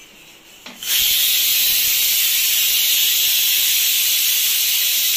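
Pressure cooker on a gas stove venting steam through its whistle valve: a loud, steady hiss that starts suddenly about a second in.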